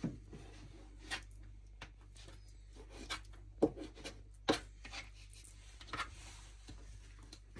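Chef's knife slicing through a raw fish fillet on a plastic cutting board: faint scraping strokes with a few sharper clicks of the blade against the board, the loudest about three and a half and four and a half seconds in.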